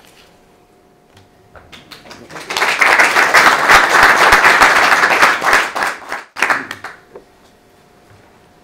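Audience applauding. It builds up about two seconds in, holds loud for a few seconds, then dies away to a few last scattered claps.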